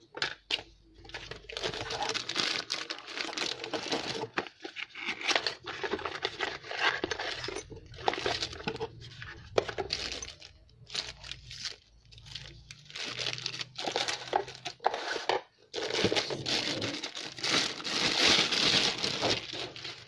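Packaging being handled and unwrapped: irregular crinkling, rustling and tearing with small clicks, coming and going in uneven spells with brief pauses.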